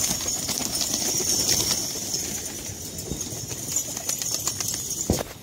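A flock of domestic pigeons flapping their wings in a burst of take-off, loudest at first and easing after a couple of seconds. A single sharp knock comes near the end.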